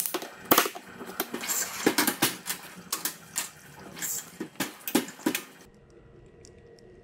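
Clinks and knocks of porcelain espresso cups and a metal portafilter being handled at an espresso machine, a quick run of sharp strikes. For the last second or so only a faint steady hum remains as espresso runs from the machine into the cups.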